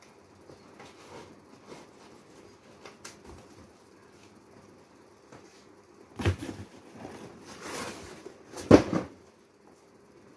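Cardboard boxes being moved and handled: soft rustling and scraping, then louder scrapes and knocks from about six seconds in, the sharpest knock near the end.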